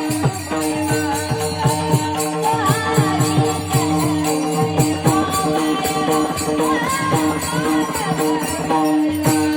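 Varkari kirtan music: girls singing a devotional melody over a steady held drone, with jingling hand cymbals and regular drum strokes keeping the beat.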